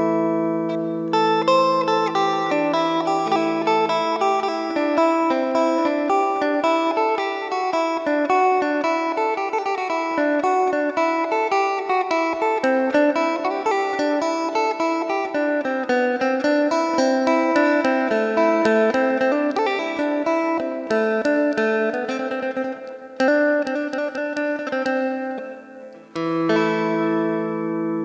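Electric phin (Isan lute) with a jackfruit-wood body being played: a fast plucked melody over a sustained low drone. Near the end the melody breaks off and the drone notes ring on by themselves.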